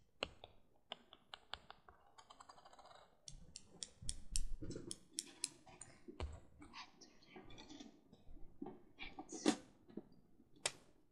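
Irregular sharp clicks and taps close to the microphone, like keys or small hard objects being handled, with a fast even run of clicks about two seconds in, duller knocks about four seconds in and a few louder clicks near the end.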